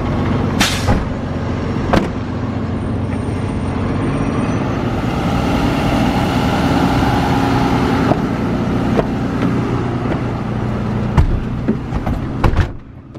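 Fire rescue truck's engine and road noise heard from inside the cab as it drives, a steady low drone that swells in the middle. A few sharp knocks and clunks, several close together near the end, just before the noise drops off suddenly.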